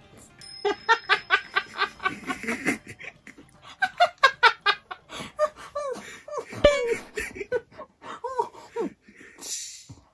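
A person laughing hard in a long run of quick, repeated bursts, with a brief lull partway and softening near the end.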